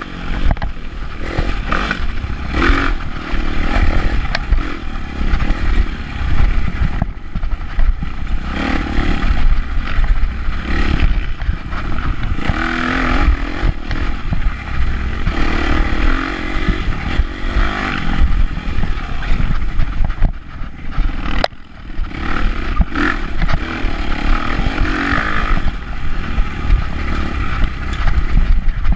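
Dirt bike engine ridden hard on a rough trail, revving up and down continuously as the throttle is worked, with the bike clattering over the ground. There is one sharp knock about two-thirds of the way through.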